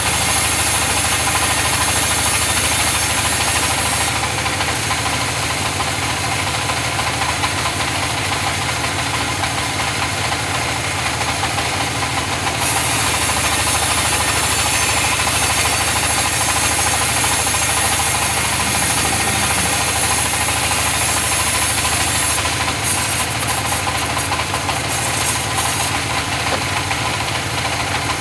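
Sawmill machinery running steadily while mahogany is being sawn: an unbroken mechanical drone with a knocking engine-like beat, its high hiss shifting about four seconds in and again near thirteen seconds.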